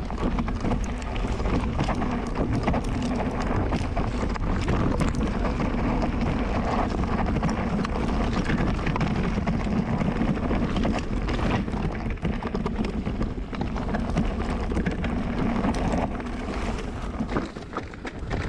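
Electric mountain bike descending a rough trail: wind rushing over the microphone, with a rapid, irregular clatter of the tyres and frame over stones throughout.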